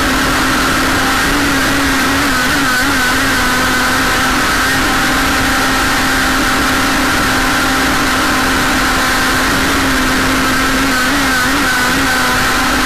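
Motor of a radio-control jersey skiff model boat running steadily at speed, a constant whine with the rush of water, heard from a camera on the deck. The pitch wavers slightly a couple of seconds in and again near the end.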